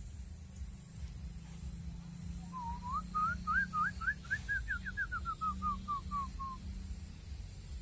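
Green pigeon (punai) singing. A run of about twenty short whistled notes starts a couple of seconds in, climbs in pitch, then falls back step by step and ends after about four seconds.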